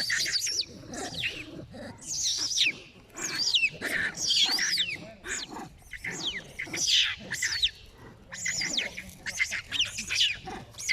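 A young monkey crying loudly in repeated high-pitched, bird-like squeals that sweep up and down in pitch, in bouts with brief pauses.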